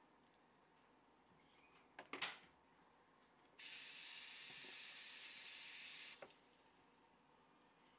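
A water tap turned on, running steadily for about two and a half seconds, then shut off abruptly, after a couple of sharp clicks about two seconds in.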